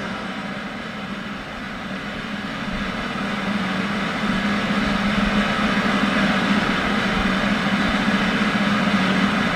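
Drum roll: a steady rumbling roll that slowly builds louder, the build-up before a stunt.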